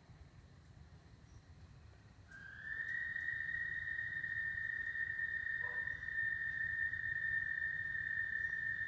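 A long, steady, high whistle-like trill that begins about two seconds in, rises slightly at its start and then holds one pitch. It fits the breeding call of an American toad, which calls at night after heavy rain.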